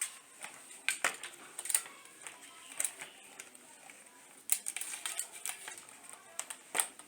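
Irregular plastic clicks and knocks as a ring light is twisted and screwed onto a tripod stand's mount, with a cluster of quick clicks around the middle.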